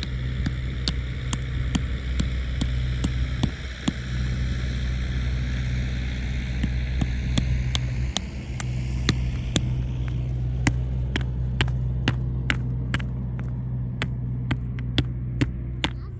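A motor running steadily with a low hum, with sharp ticks about two to three times a second that come more regularly in the second half.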